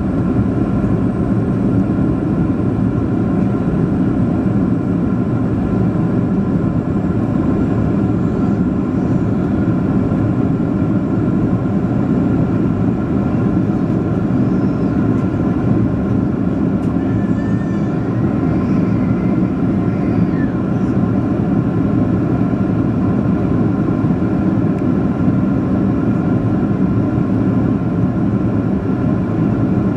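Steady cabin noise inside a Boeing 737-400 in flight on its approach: the rush of air along the fuselage with the drone of its CFM56 turbofan engines, a few steady tones running through it.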